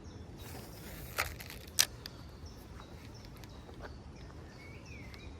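Fishing tackle being handled: two sharp clicks about half a second apart, after a brief hiss. A bird calls once near the end.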